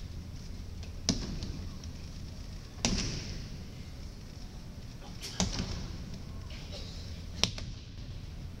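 Sharp slaps of aikido breakfalls on a tatami mat, four of them about two seconds apart, each echoing briefly in a large hall over a steady low hum.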